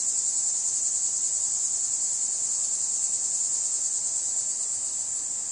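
A steady, high-pitched insect chorus, an even drone that does not change.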